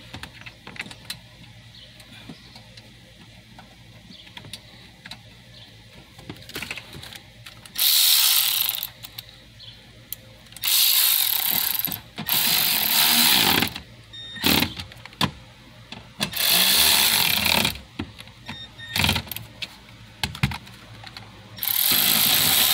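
Cordless electric ratchet running in bursts, driving 7 mm screws into the lower dash panel: about seven runs, the longest about a second and a half, some only a blip, after several seconds of quiet handling clicks.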